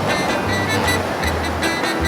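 A train passing close over a level crossing: a loud, steady rush with heavy low thumps every half second or so, and the crossing's warning bell ringing faintly over it.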